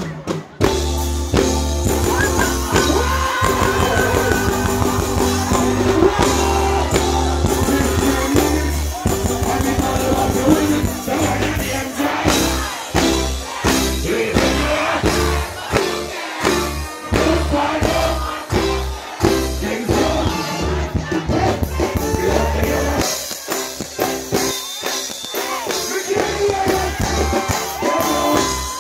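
Live reggae band playing loud through a stage sound system, with bass, drums and keyboards, and a singer's voice over it. The bass drops out for a few seconds near the end while the crowd cheers.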